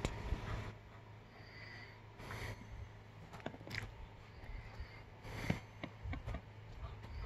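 Sheepdog puppy chewing and gnawing on its toys, with irregular small clicks and short breathy sniffs.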